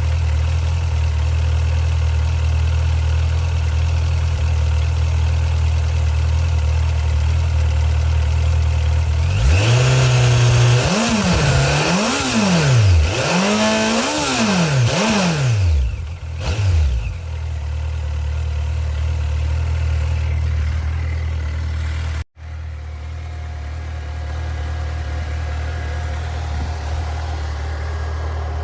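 Suzuki GSX1250FA's inline-four engine idling steadily, then revved several times in quick blips about a third of the way in before dropping back to idle, running on fresh oil after an oil and filter change. A brief cut in the sound comes a little past the middle.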